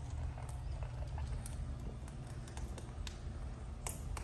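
An Amazon parrot eating at a metal food bowl in its cage: faint, scattered clicks and taps, with a sharper click near the end, over a low steady hum.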